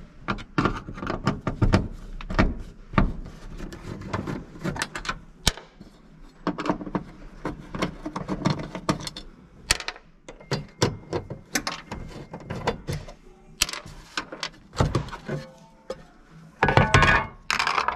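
A screwdriver turning out the small screws of a fuel-pump access cover: a string of irregular clicks, ticks and scrapes as the screws loosen and are handled. Near the end comes a louder, longer scrape as the cover is lifted off.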